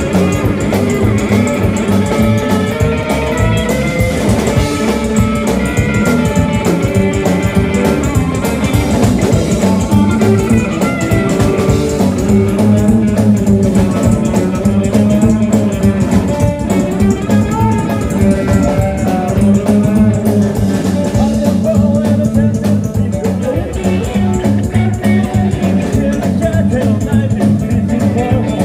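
Live rockabilly band playing loud: electric guitars and a drum kit driving a steady beat, with a singer on top.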